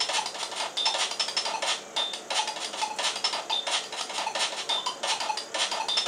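Chiptune demo music from a Commodore Plus/4's TED sound chip: a fast, regular beat of hissy noise-channel percussion with short high-pitched square-wave blips, thin with almost no bass.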